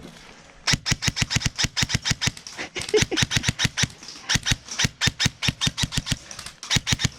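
Airsoft electric rifle firing on full auto, rapid clicking shots at about eight a second, in several bursts with short pauses, starting under a second in.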